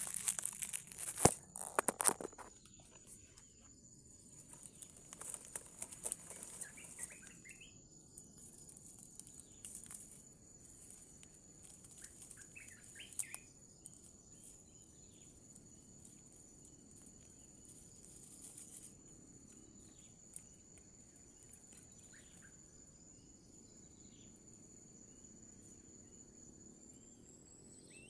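Crackling rustle of leaves and handling for the first two seconds, then a quiet outdoor forest scene: a steady high insect drone that rises in pitch near the end, with a few faint short bird chirps.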